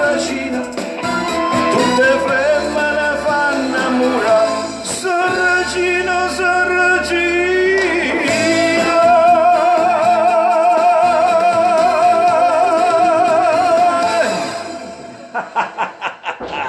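A man sings into a microphone over a backing track and ends on a long held note with strong vibrato. The music then fades out, and short bursts of laughter follow near the end.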